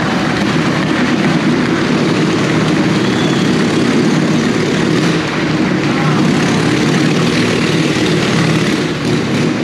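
Motorcycle engine running loud and steady as the bike rides around the vertical wooden wall of a wall-of-death drum.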